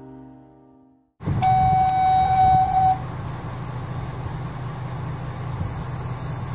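A radio dispatch alert tone, one steady high beep lasting about a second and a half, cuts in suddenly after a moment of near silence, the tone that opens an EMS last-call broadcast. A steady low hum runs under it and carries on after the beep stops.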